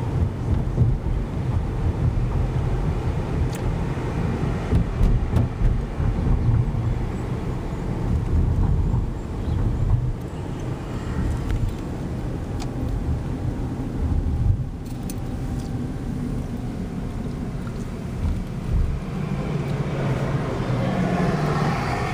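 Low, steady rumble of a car driving along city streets, heard from inside the cabin: engine and tyre noise, with a few faint clicks.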